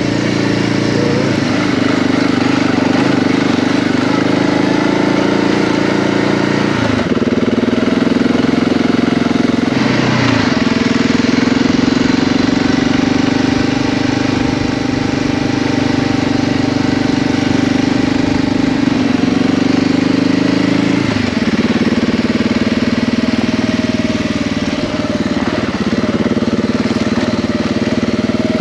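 Dual-sport motorcycle engine running under way on a dirt trail. Its pitch drops and picks up again a few times, about 7, 10 and 21 seconds in, as the throttle and speed change.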